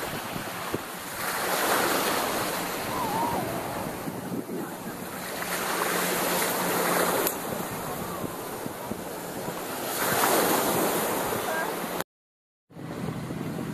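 Gentle surf washing up onto a sandy shore, swelling and fading about every four seconds, with some wind on the microphone. The sound cuts out briefly near the end.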